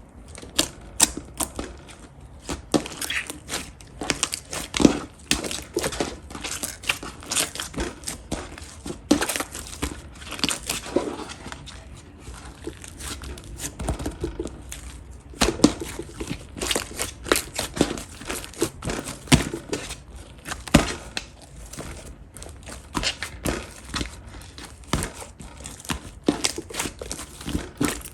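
Slime being played with by hand, giving a dense, irregular run of crackling and popping clicks, several a second, without a break.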